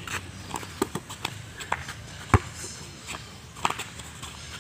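A basketball knocking a few times, the loudest knock a little over two seconds in, over faint voices.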